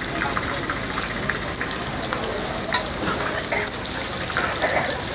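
Food sizzling in oil on a large flat metal griddle, a steady hiss, with a few sharp clicks of a metal spatula against the griddle.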